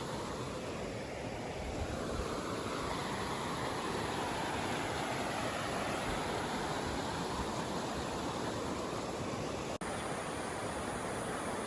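Flowing water rushing steadily, as from a stream or waterfall, cutting out for an instant near the end.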